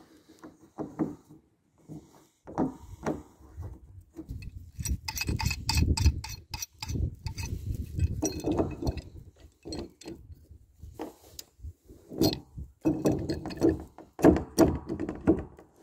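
Plastic pipe fittings being screwed onto a poly tank's bulkhead fitting by hand and gripped with a pipe wrench: runs of quick, sharp clicks and creaks about five to seven seconds in and again near the end, over low rumbling handling noise.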